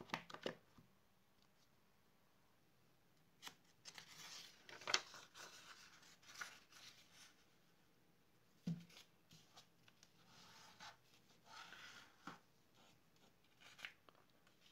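Sheets of white paper being handled by hand and a sheet folded in half and pressed flat, with intermittent rustling and scraping. There is a soft knock about nine seconds in.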